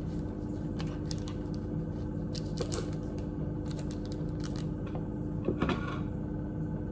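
Scattered light clicks and taps of kitchenware being handled, over a steady low hum.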